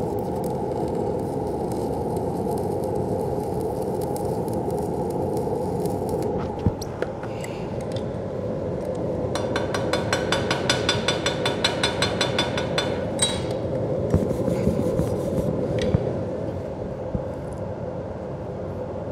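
Stick-welding arc crackling steadily as a nickel electrode runs a short bead on cast iron, cutting off about six seconds in. After a pause, a chipping hammer strikes the bead in a fast, even run of taps, with a few more strikes later, to chip off slag and peen the weld to relieve its stresses. The steady hum of a portable fume extractor runs underneath throughout.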